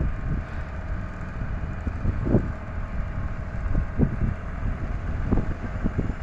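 Wind buffeting the microphone in gusts over the low rumble of street traffic.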